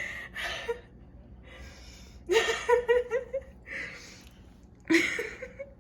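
Breathless laughter: a run of short pulsed giggles a little over two seconds in, then breathy gasps between the bursts.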